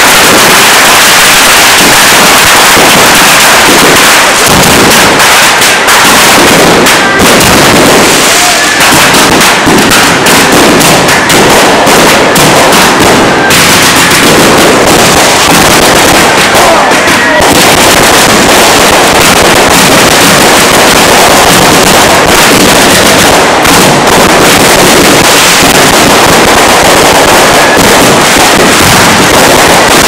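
Bottle rockets and firecrackers from a beehive rocket barrage going off in a dense, unbroken stream of bangs and crackling, so loud that the recording stays near its maximum level.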